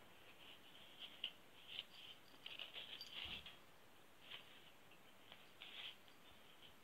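Faint, scattered scratchy rustles and light taps, busiest about halfway through, from a Shih Tzu puppy playing with an empty cardboard toilet-roll tube on a shaggy rug.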